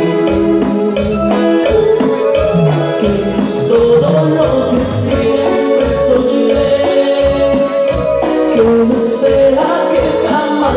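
Live dance-band music played loud over a PA system: a keyboard melody over bass with a steady percussion beat.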